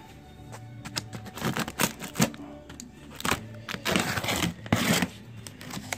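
Plastic stretch wrap and packing tape being pulled and torn off a cardboard box, a series of short rips and crinkles with the loudest run about four to five seconds in, over faint background music.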